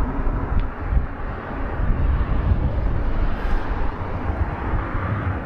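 Jet aircraft taking off from the nearby runway: a steady, even roar, with wind rumbling on the microphone.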